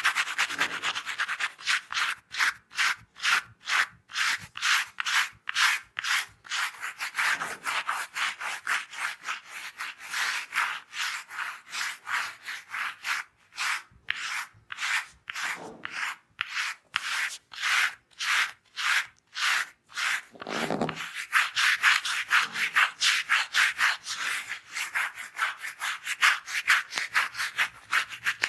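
Rapid rubbing strokes on a person's hair and scalp during a head massage, about three a second, with a couple of brief pauses.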